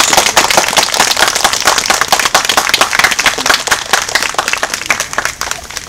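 Audience applauding: many people clapping densely, thinning out near the end.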